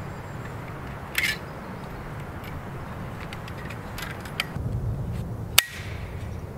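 Metal clicks and clinks as an Agawa folding bow saw is unfolded and its frame set into shape, with a short rattle about a second in and one sharp snap near the end as the frame locks.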